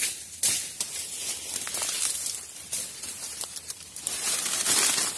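Dry bamboo leaves and brush rustling and crunching as someone pushes through a bamboo thicket on foot, with scattered sharp snaps of twigs and stems. It gets louder near the end.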